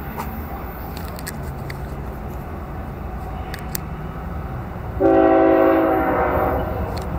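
Approaching CSX diesel locomotive rumbling low, then its air horn sounds one loud chord-like blast of several tones about five seconds in, tapering off after a second or so.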